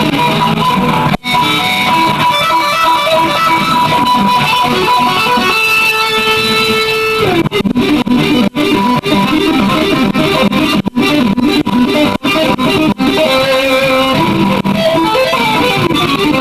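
Electric guitar jamming through effects, a run of plucked notes with one note held for about a second and a half midway.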